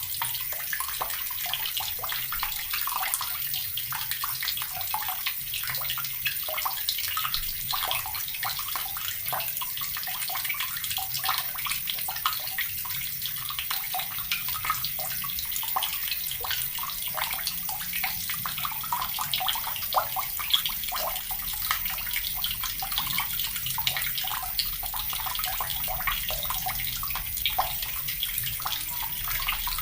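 Water running steadily from a tap and splashing continuously into the water below, a dense, even patter of small splashes.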